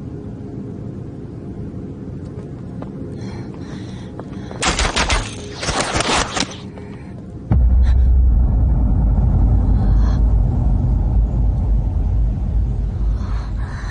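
A quick run of sharp cracks lasting about two seconds, then a loud, deep rumble that starts suddenly about halfway through and holds steady.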